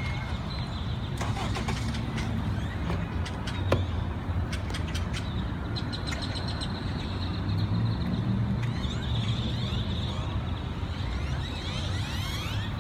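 A large flock of birds calling, many overlapping chirps and sharp clicks, over a steady rumble of road traffic.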